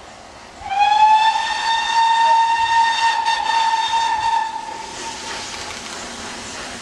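Steam locomotive whistle sounding one long blast of about four seconds, its pitch sliding up slightly as it opens. A fainter hiss carries on after it.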